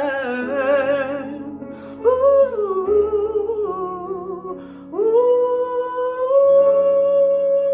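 Woman humming wordless jazz vocal lines over sustained accompaniment chords: a note with vibrato that fades about a second in, a short sliding phrase, then one long held note from about halfway through.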